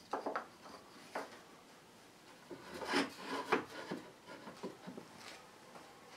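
A wooden board knocking and sliding on a wooden workbench top as it is set against a bench dog and pushed into place. A few light knocks come first, then a louder run of rubbing and knocks midway, then a few scattered taps.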